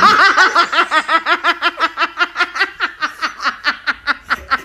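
A person laughing hard and high-pitched in a rapid, unbroken run of short bursts, about seven a second.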